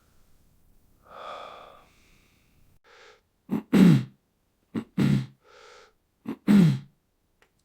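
A person coughing three times, about a second and a half apart, each cough starting sharply and falling in pitch, with short breaths drawn in between. A breath in comes about a second before the first cough.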